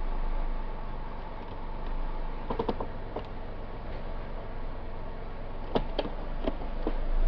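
2001 Pontiac Sunfire's 2.2 L engine idling at operating temperature as the T45E automatic's floor shifter is moved through each gear with the brake held. A few short clicks from the selector come a little over two seconds in and again around six seconds.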